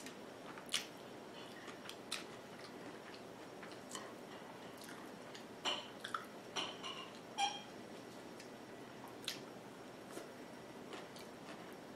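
Eating sounds: a person chewing, with small wet mouth clicks, and a few light clinks and a brief scrape of a metal fork on a plate. Scattered single clicks over a faint steady hiss, busiest in the middle.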